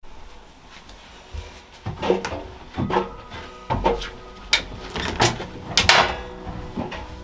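Laundry being pulled out of a front-loading washing machine drum into a plastic laundry basket: fabric rustling and a series of sharp knocks and bumps, starting about two seconds in and coming roughly every second.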